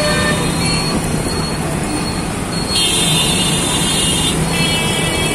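City traffic heard from a motorbike: a steady engine hum and road noise, with a vehicle horn sounding about halfway through in a long blast, then again near the end.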